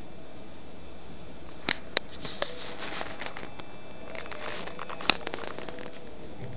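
Handling noise from a handheld phone camera: a few sharp clicks and taps, the loudest about five seconds in, with scratchy rustling, over a steady hiss.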